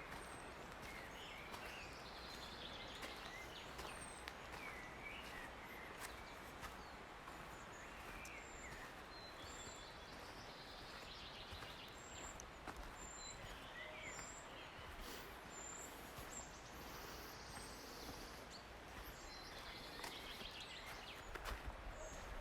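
Faint forest ambience: small songbirds giving short, high chirps and calls scattered throughout over a steady soft hiss.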